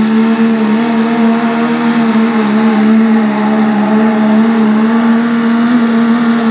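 Turbocharged diesel engine of a four-wheel-drive pulling truck running flat out under full load as it drags the weight sled, its pitch holding nearly steady with slight wavering throughout.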